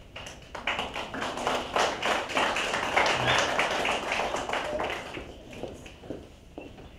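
Small audience applauding, separate hand claps heard within it, building for the first second or so and fading away over the last couple of seconds.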